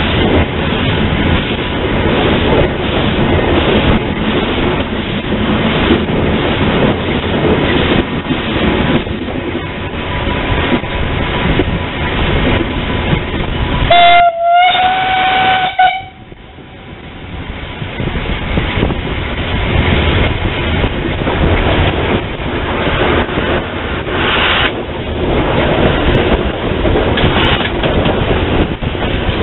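An 0-8-0 steam tank locomotive running, heard from its cab as steady running noise. About halfway through its steam whistle sounds a short toot followed by a blast of about a second and a half.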